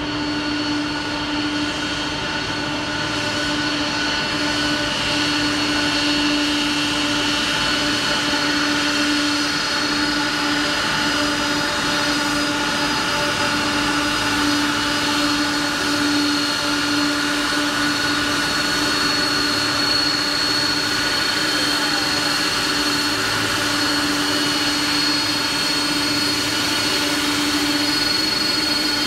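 Boeing 747-400's four jet engines running at low taxi power at close range: a steady rush with several steady whining tones over it.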